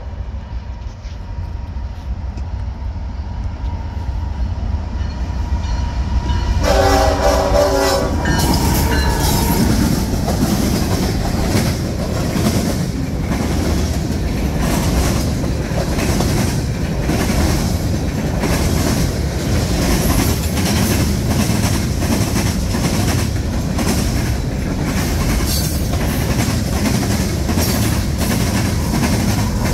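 Freight train approaching and passing close by. The locomotive horn sounds one blast about seven seconds in. Then the cars roll past with a steady rumble and a rapid, repeating clickety-clack of wheels over the rail joints.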